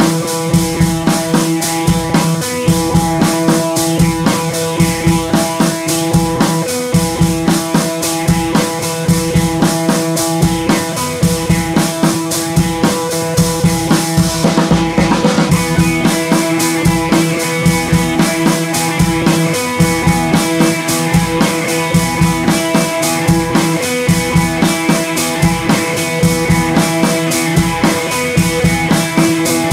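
Background music: an instrumental track with a steady drum-kit beat under sustained notes.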